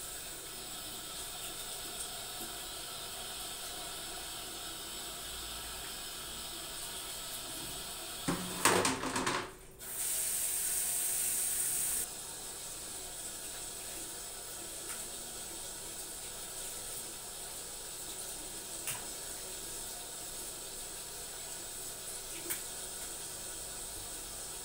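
Water running from a tap into a bathroom sink, a steady hiss. About eight seconds in comes a loud, brief burst of noise lasting about a second and a half, and the running water then hisses louder and brighter for about two seconds before settling back.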